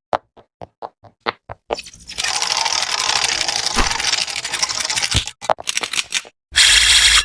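Crunching, scraping handling noises: a quick run of sharp clicks, then about three seconds of dense crackling, more clicks, and a short loud burst that cuts off suddenly near the end.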